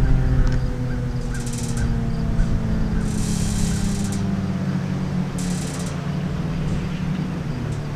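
Federal Signal 2001-SRN siren winding down, its tone sliding slowly lower in pitch as it fades.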